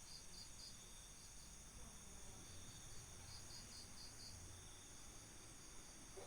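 Crickets and other night insects, faint: a steady high trill with runs of short chirps about four a second.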